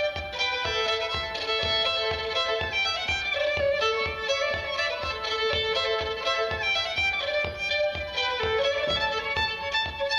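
Solo fiddle playing a traditional dance tune: a rapid, unbroken run of bowed notes.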